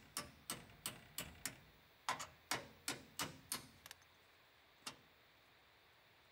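Sharp metal clicks, about three a second, stopping about four seconds in with one more a second later: a hand ratchet tightening the mounting bolts of a 2-inch receiver on a van's frame.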